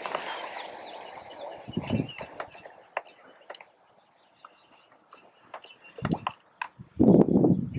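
Short bird chirps with scattered sharp clicks and knocks, then a loud, rough rushing noise about seven seconds in.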